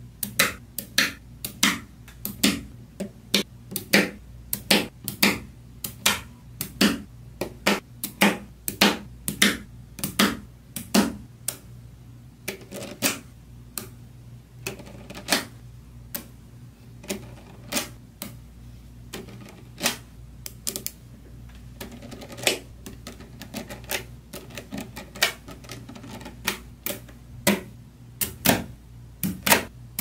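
Small neodymium magnetic balls (Neocube) clicking sharply as slabs of them are pressed and snapped onto a ball-magnet block, in an uneven run of several clicks a second.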